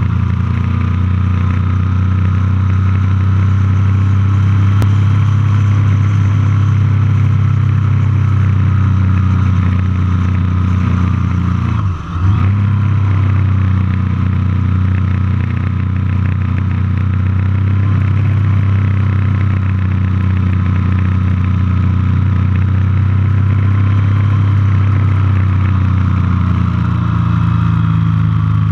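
Triumph motorcycle engine running steadily at road speed, heard from on the bike, with a brief dip in revs and loudness about twelve seconds in.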